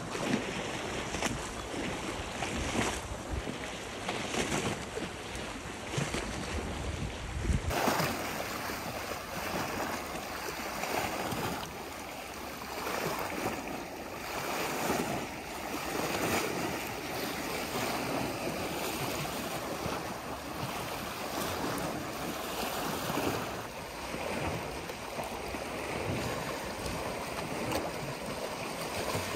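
Sea waves washing in at high tide on a big spring tide: a continuous surf noise that swells and eases with each wave. Wind rumbles on the microphone for the first few seconds and stops abruptly about eight seconds in.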